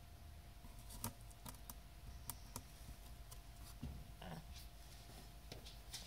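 Faint congested breathing of a cat with a cold: scattered small clicks and crackles from a blocked nose, with a soft snuffle about four seconds in.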